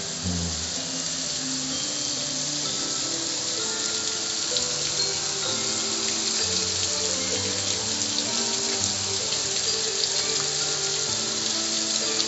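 Steady hiss of a jet of water from a spray nozzle hitting the lid and front panel of a gas grill, with background music playing.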